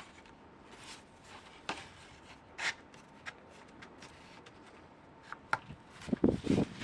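Foam tail-plane halves of an RC model plane being handled and pushed together onto their joining rod: scattered light rubs and clicks, with a cluster of louder rubbing and knocks near the end.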